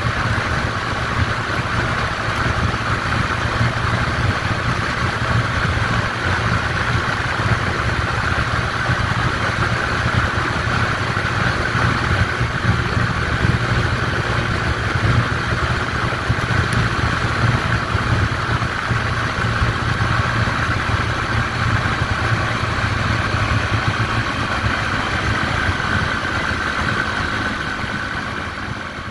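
150 cc motorcycle running steadily at highway cruising speed, about 100 km/h, its engine mixed with wind and road noise. The sound fades a little near the end.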